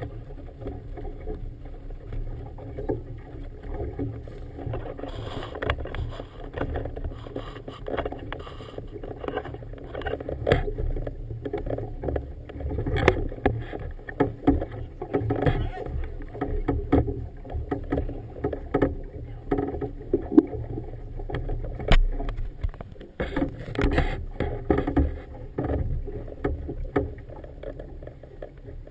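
Choppy harbour water slapping and sloshing against the bow of a small boat riding at a mooring buoy, with irregular knocks and splashes.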